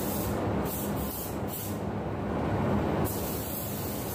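Compressed-air paint spray gun hissing as basecoat is sprayed, over the steady rush and hum of a spray booth's ventilation; the spraying stops abruptly about three seconds in.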